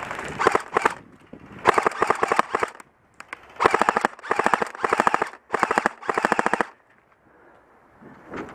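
Airsoft electric rifle firing on full auto: about six short bursts, each under a second, every one a rapid, even rattle of shots.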